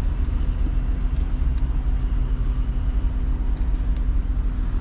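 2008 Porsche Cayenne's engine running steadily, a low rumble. The engine runs well, and the transmission creeps the car forward on its own.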